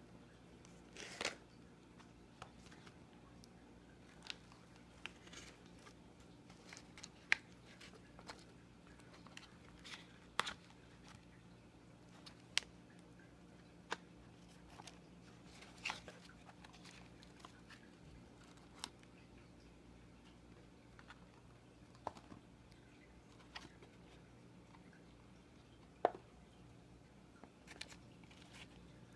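Faint, irregular clicks and taps of small objects being handled, a dozen or so sharp ones spread out, over a low steady hum.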